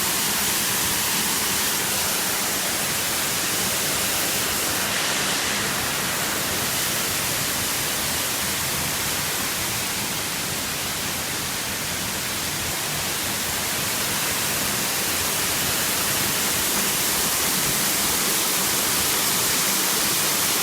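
Waterfall's falling water making a steady rushing hiss.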